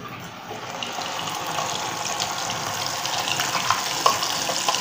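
Wet almond paste hitting hot ghee in a non-stick kadhai and frying with a steady sizzle that builds over the first second, with a few light clicks of a spoon scraping paste out of a steel cup.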